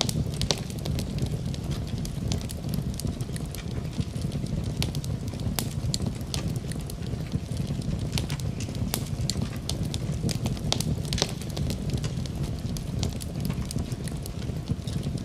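Wood fire burning in a fireplace: irregular sharp crackles and pops scattered over a steady low rumble.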